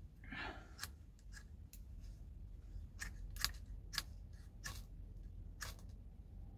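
A brief rustling scrape, then about six sharp, separate clicks a second or so apart, from hands working a small piece of paper with a small tool or object.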